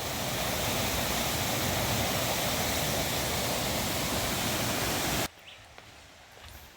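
Steady rushing of a waterfall, which cuts off abruptly about five seconds in, leaving quiet outdoor ambience with a few faint clicks.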